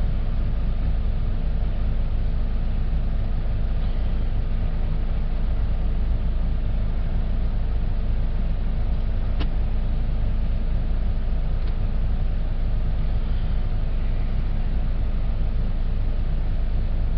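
Buick Verano's four-cylinder engine idling steadily, heard from inside the cabin as a low, even hum.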